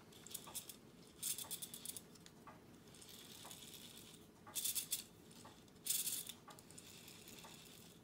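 Small metal parts of a rotary dial mechanism clicking, rattling and scraping as they are handled, while the spring tensioner is worked round to find its notch. The clicks come in a few short clusters: about a second in, around four and a half seconds, and around six seconds.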